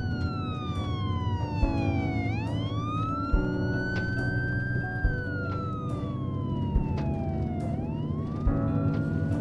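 A siren wailing in slow cycles: its pitch falls over about two seconds, then sweeps quickly back up, twice. Under it runs music with held notes and a low thudding pulse about every second and a half.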